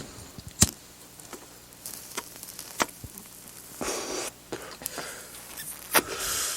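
Sparse sharp clicks and two short swells of hiss over a faint low hum, in the opening of a dub track before the music comes in.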